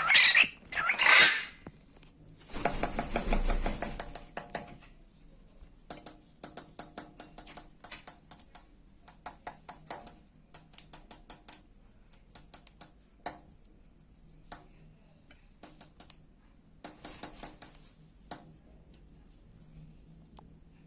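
Cockatiel knocking with its beak in quick runs of rapid taps, clusters of sharp clicks coming every second or so, after two short loud calls at the start.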